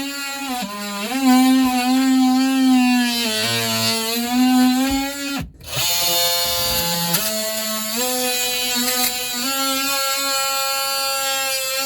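Handheld power tool running with a steady motor whine whose pitch sags and recovers under load. It cuts out briefly about five and a half seconds in, then runs on steadier.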